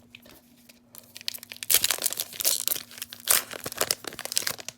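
Foil wrapper of a Pokémon trading card booster pack being crinkled and torn open, a dense crackling that starts about a second and a half in after a few light rustles.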